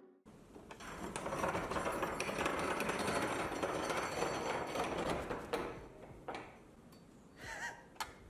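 A tool undoing a 10 mm bolt: dense, rapid mechanical clicking and rattling for about five seconds, then a few fainter scattered clicks.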